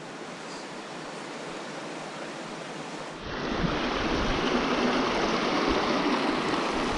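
Mountain river water rushing, a steady even rush that becomes louder and fuller about three seconds in.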